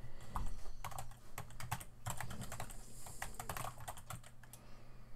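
Computer keyboard typing: a run of quick, irregularly spaced keystroke clicks.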